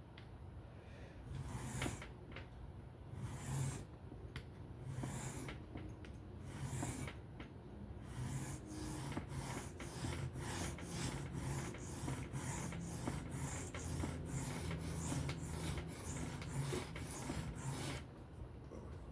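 Steel knife blade, a Benchmade 945 in S30V, being stroked freehand across a whetstone: scraping strokes, a few spaced apart at first, then a quick steady run of about two to three a second that stops near the end. The edge is being reprofiled under heavy pressure.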